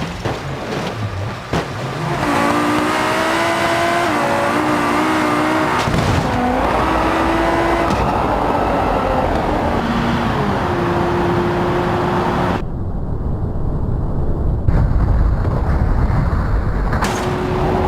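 Car engine running and revving, its pitch rising and falling over tyre and road noise, with a few sharp knocks in the first two seconds.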